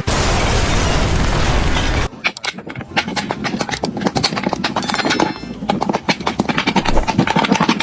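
A dense, noisy rush for about two seconds, then a fast, irregular run of sharp bangs and knocks.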